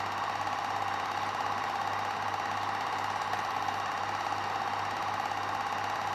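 Film projector running: a steady, rapid mechanical clatter with an even hum underneath, laid over a silent film.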